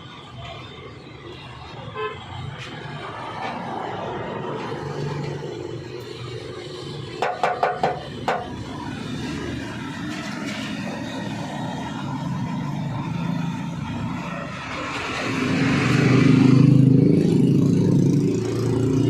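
Road traffic going by, with a motor vehicle's engine swelling louder for the last few seconds. About seven seconds in there is a quick run of five or six short, sharp ringing sounds.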